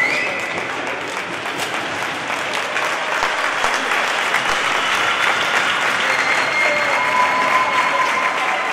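Arena crowd applauding, a dense, steady clapping that starts sharply and holds throughout.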